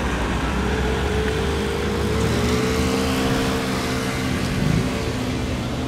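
Approaching twin-engine propeller plane on final approach, its engines giving a steady hum that rises slightly in pitch, over a low rumble of road traffic.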